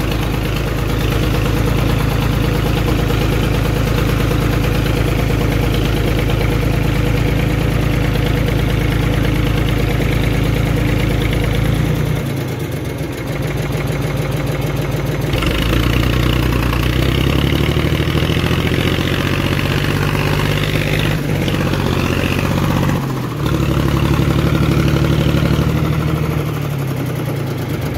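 Tractor diesel engine running steadily as the tractor drives through mud and water. It picks up and runs harder from about halfway through, with a brief dip in the engine note shortly before that and another near the end.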